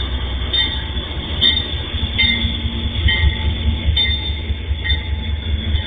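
MRS freight train's diesel-electric locomotives passing close by, their engines giving a heavy, pulsing low rumble, with short high chirps from the wheels on the rails about once a second.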